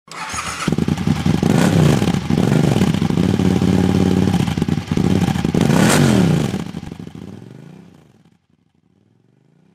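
Sound effect of a revving vehicle engine that starts abruptly, swings up and down in pitch several times, then fades away about eight seconds in.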